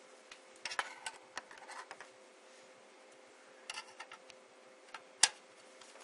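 Light metal clicks and scraping as a thin steel mounting rail is handled and pressed against the side of a steel hard-drive cage, with one sharp click a little after five seconds in.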